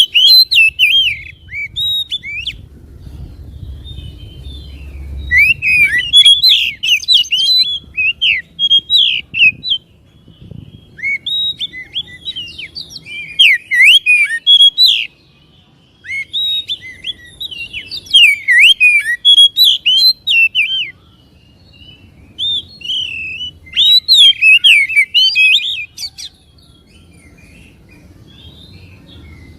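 Oriental magpie-robin (kacer) singing loud phrases of rapid, varied whistled notes, each burst a few seconds long with short pauses between, as in a bait recording used to provoke other magpie-robins.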